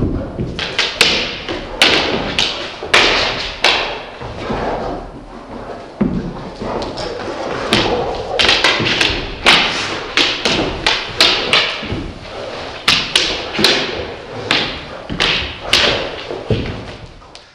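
Two dogs, a Vizsla and a spotted pointer, play-fighting: a dense, irregular run of thumps and taps from paws and bodies hitting the floor and each other, several a second.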